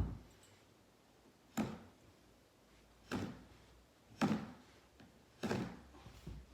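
Five sharp knocks from a tool fastening a carpet runner to stair treads, about one every second and a half. The first knock is the loudest.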